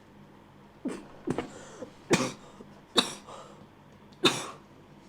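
A woman coughing hard, about five harsh coughs spaced roughly a second apart. The cough is put on to sound like a tuberculosis cough.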